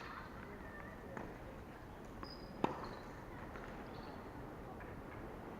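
Tennis ball struck by a racket once, a little past halfway, with a few fainter knocks and short high squeaks around it.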